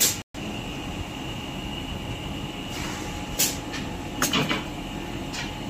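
Steady factory background noise, with a few short sharp knocks and clacks about three and a half to five and a half seconds in, typical of items being handled. The sound cuts out briefly near the start.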